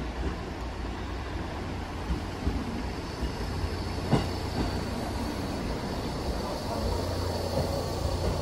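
JR Central 313 series electric train pulling into the station and slowing, with the steady rumble of its wheels on the rails growing as it comes alongside. A thin high whine sets in about three seconds in, and there is a single sharp click about four seconds in.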